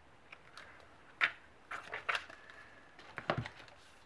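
Clear plastic stamp sheets and their packaging being handled on a desk: a few short crinkles and taps. The loudest comes about a second in, with another group around three seconds.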